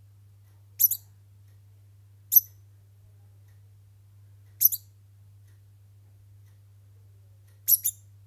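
A degu giving four short, very high-pitched squeaks spaced a second or more apart, some of them doubled, which the owner calls sad sounds.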